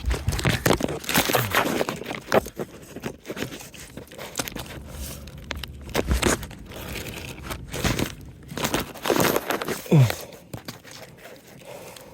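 Beeswax honeycomb being pulled out and broken by hand, with irregular crunching, crackling and tearing. A brief falling tone about ten seconds in.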